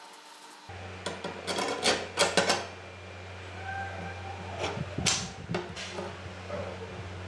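Metal clinks and knocks as a steel sword guard and wooden handle are worked onto a katana's tang: a quick run of sharp clicks a second or two in, and another about five seconds in, over a steady low hum.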